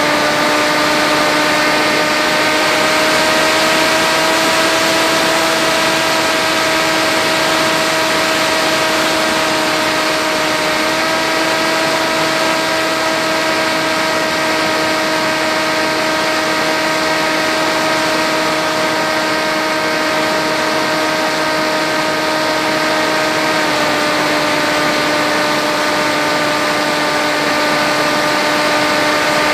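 Electric motor and propeller of an FX-61 flying-wing RC plane in flight, recorded by its onboard camera: a steady whine over airflow hiss. The pitch lifts slightly a few seconds in and drops a little late on, as the throttle changes.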